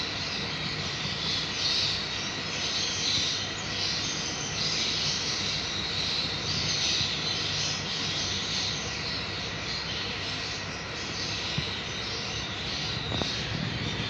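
African grey parrot chicks giving a continuous raspy, hissing begging sound that swells and fades in uneven pulses, over a steady low hum.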